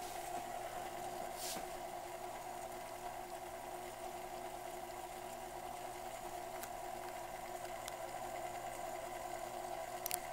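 A steady hum, with a few faint clicks and a short double click near the end. No chime sounds.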